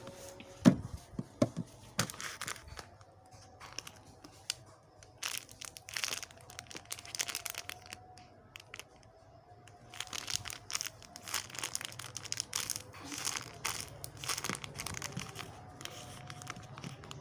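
Plastic packaging crinkling and rustling in irregular bursts as it is handled, with a single knock about a second in.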